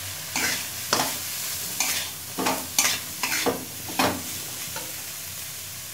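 Metal spatula stirring and scraping in a metal kadai, tossing pieces of fried chicken with onion and capsicum, which sizzle in hot oil underneath. The scrapes come in irregular strokes, about two a second.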